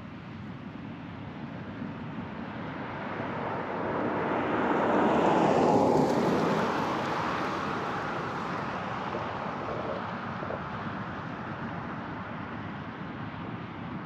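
A motor vehicle passing close by out of sight. Its noise swells to a peak about six seconds in, then fades slowly away.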